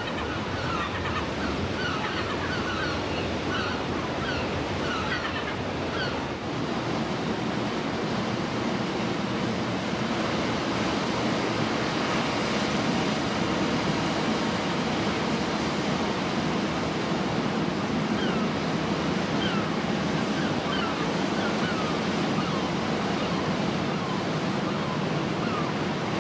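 Steady surf washing over a rocky shore. Over it, seabirds call in short repeated notes during the first several seconds, and again for a few seconds later on.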